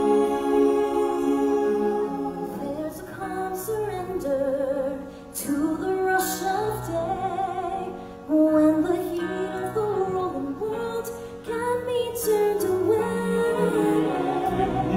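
Stage-show music: a woman singing long, sliding notes into a microphone over instrumental backing, with brief breaks between phrases about five and eight seconds in.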